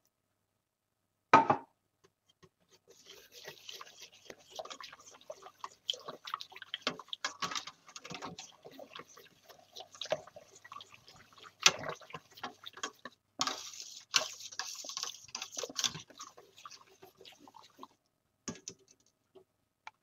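Wire whisk stirring a thick, milky soup base in a stainless steel pot: irregular clicking and scraping of the wires against the pot along with wet liquid sounds, with a few sharper knocks. A single sharp knock comes about a second in, and the stirring stops about two seconds before the end.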